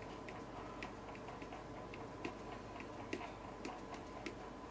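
Faint, irregular light ticks, two or three a second, over a faint steady hum.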